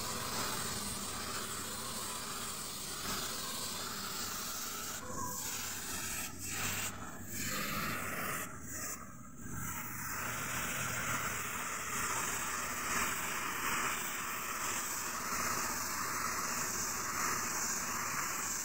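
Gravity-feed spray gun hissing steadily as compressed air atomises and sprays paint, broken by a few short stops in the middle as the trigger is let off and pulled again.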